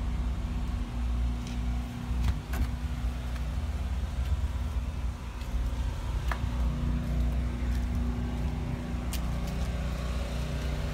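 Steady low machine hum: one unchanging droning tone over a deeper rumble, with a few sharp clicks and taps.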